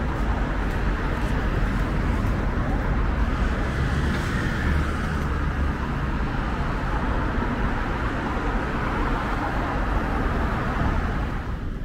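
City street traffic noise: a steady rush of passing vehicles, easing off near the end.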